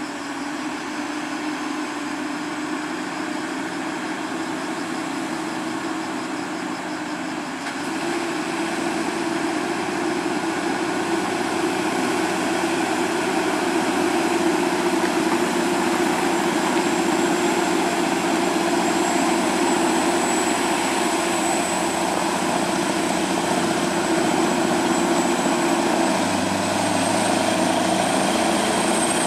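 Scania R580 truck's V8 diesel engine running steadily while pulling a heavy excavator load, its note getting louder about eight seconds in as it comes closer, with a thin high whine over it.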